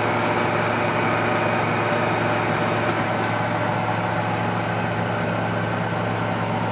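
Bridgeport Series II milling machine running with a steady electric motor hum, with two faint ticks about three seconds in.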